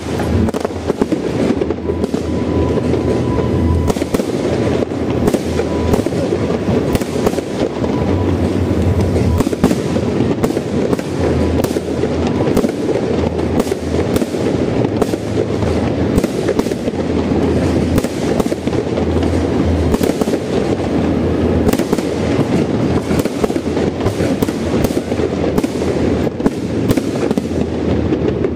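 Aerial fireworks going off in a continuous barrage: a steady rumble of booms, packed with sharp bangs and crackling reports in quick succession.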